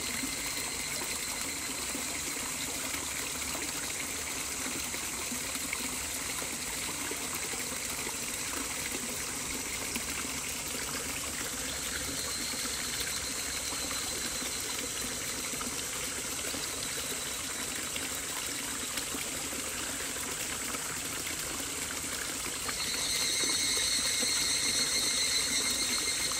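Steady flowing water, like a running stream, with faint high-pitched tones above it that become louder about three seconds before the end.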